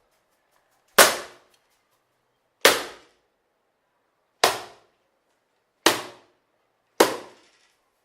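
A newspaper swatted against a wall at a mosquito: five sharp slaps, irregularly spaced a second or two apart, each dying away quickly.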